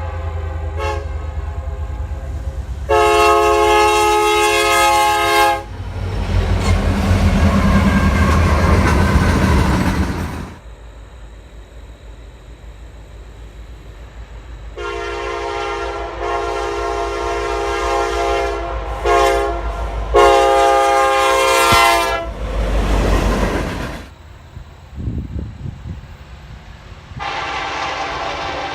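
Freight locomotive air horns sounding a series of chord blasts, several seconds each, with a short toot among them. Between the blasts, the rush and rumble of a passing train, with rail clatter.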